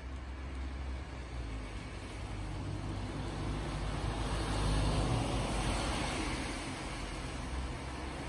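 Steady low rumble and hiss of outdoor background noise, swelling louder about halfway through; no calls from the dove chicks stand out.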